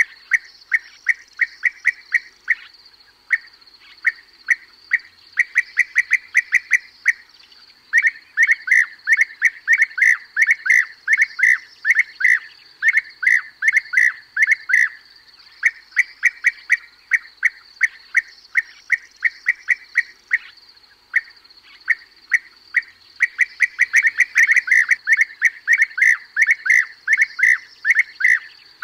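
European bee-eaters calling: rapid runs of short, rolling calls, several a second, broken by brief pauses, with a faint steady high-pitched hiss behind.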